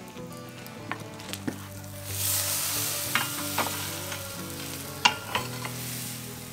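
Hot braai coals hissing and sizzling as liquid from the oil-coated whole pig drips onto them. The hiss swells in about two seconds in, with a few sharp crackles.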